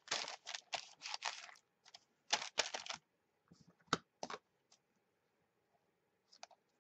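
Notebook paper rustling and crinkling under hands as the pages are pressed and smoothed, in quick scratchy bursts over the first three seconds. Two sharp clicks follow about four seconds in, then a few faint ticks near the end.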